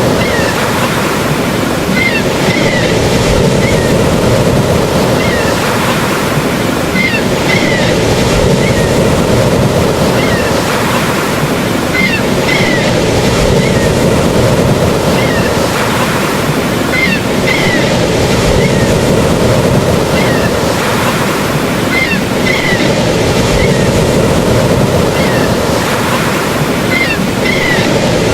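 Steady, unbroken rushing of water, with short high chirps recurring in small clusters about every five seconds.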